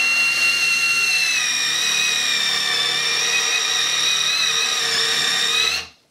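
Cordless drill running a wood twist drill bit that cuts sideways along the edge of a softwood beam, milling a slot. A steady high whine that dips slightly in pitch about a second in as the bit takes load, then stops suddenly near the end.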